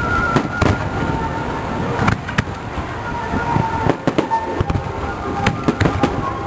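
Aerial firework shells bursting in an irregular string of sharp bangs, with music for the pyromusical show playing underneath.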